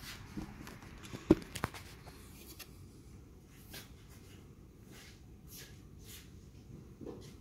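Angle grinder being handled while its attachment is taken off by hand with the spindle lock. A sharp metallic click comes about a second in, with a couple of smaller knocks around it, then faint brief rustles of handling.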